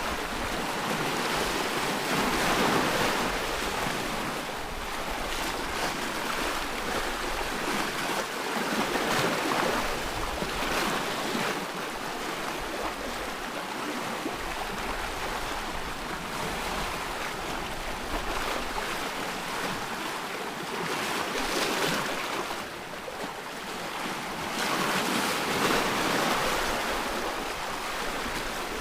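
Ocean waves breaking on a shore, a steady wash that swells and ebbs every few seconds.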